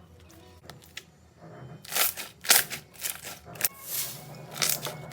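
Slime being squeezed and pressed by hand: after a quiet start, a run of short wet crackles and pops, about two a second, from about two seconds in.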